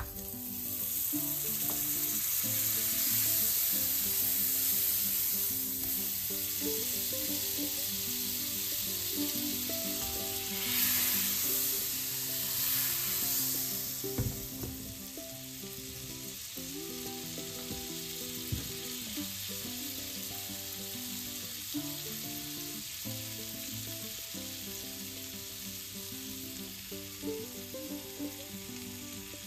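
Butter sizzling and foaming in a hot non-stick frying pan, loudest over the first half, then easing to a quieter steady sizzle. Soft background music plays underneath.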